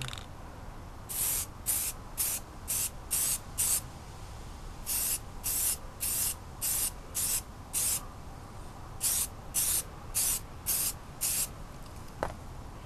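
Aerosol spray-paint can spraying grey paint through a paper stencil in quick short hisses, in three runs separated by pauses of about a second.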